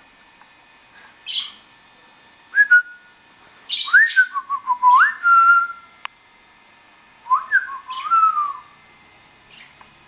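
Whistling in three short phrases of smooth rising and falling glides with held notes, about two and a half, four and seven and a half seconds in, with brief high chirps from pet budgerigars between them.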